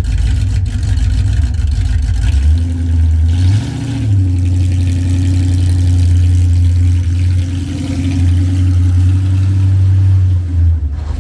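426 Hemi V8 with open headers running, with one brief rise in engine speed about four seconds in before settling back to a steady run.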